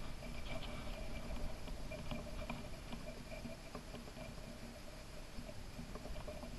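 Wind rumbling on the microphone, with faint scattered ticks and light rustling; no shot.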